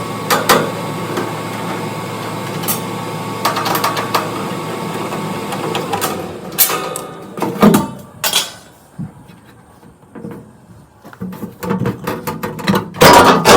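Gas furnace inducer motor running with a steady hum, which stops about seven seconds in; metal clicks, knocks and clatter of the furnace's sheet-metal panel being handled, loudest near the end.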